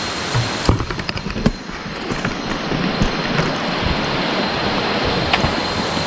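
Footsteps and sharp clicks on a trail, with a quick run of knocks about a second in and single ticks later, over a steady rushing noise.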